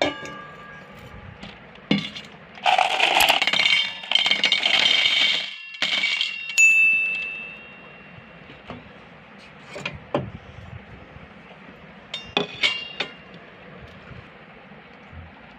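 Glass marbles clinking and rattling against one another and hard surfaces. A few single clicks, then a dense clatter for about three seconds, a bright ringing clink that fades, and scattered clicks later.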